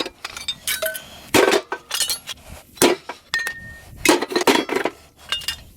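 Pieces of scrap metal being tossed onto a pile, making a run of irregular clanks and clinks, several with a short ringing note.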